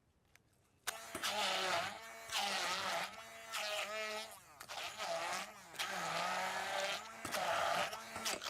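Electric food processor blitzing chopped chillies, garlic, ginger, shallots and fresh turmeric into a curry paste. It starts about a second in and runs in repeated pulses of roughly a second each, its pitch shifting as the blades work through the ingredients.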